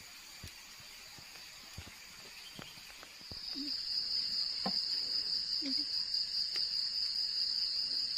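Crickets and other night insects trilling in a steady high-pitched chorus, faint at first and much louder from about three seconds in. A few light knocks and clicks sound over it.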